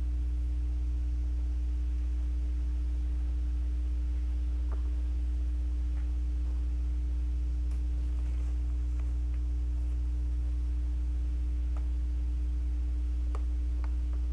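Steady low electrical hum with a fainter, higher steady tone above it, unchanging throughout. A few faint short clicks from the seedlings and plastic growing channel being handled come around the middle and twice near the end.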